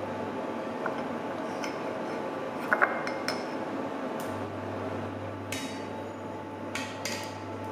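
Scattered clinks of utensils and dishes over a steady background hiss with a low hum, two sharp clinks close together about three seconds in.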